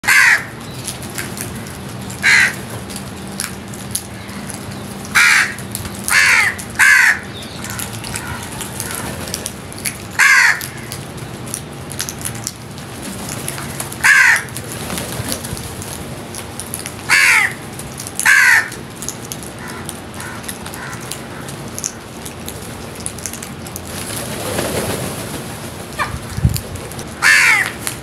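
House crows cawing: about ten single harsh caws, each short and falling in pitch, spaced irregularly, over a steady background hiss.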